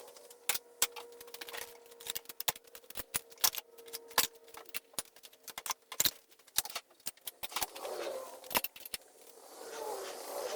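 Hand tools and small metal engine parts clinking and clicking irregularly as a dirt bike engine is taken apart, with a faint steady hum through the first half.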